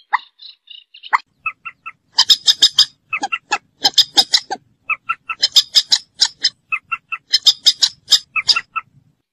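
Moorhen calling: a couple of single sharp notes, then from about a second and a half in, quick runs of short, clipped, squawking notes in rapid bursts with brief pauses between them, stopping shortly before the end.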